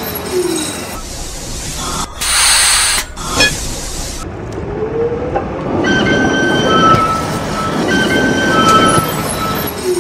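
Electric tram running on its rails: steady rumble and rolling noise with thin high tones, a short burst of hiss about two seconds in, and a rising whine about five seconds in.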